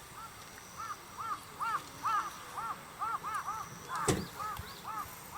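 Birds calling over and over in quick, overlapping short calls, like a flock, with one sharp knock about four seconds in.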